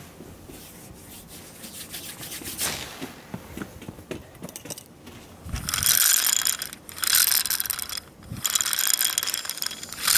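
A wooden string-pull launcher spinning a bamboo dragonfly's rotor. After some soft handling noise, there are three whirring spells of about a second each, starting about six seconds in, and a short one at the very end.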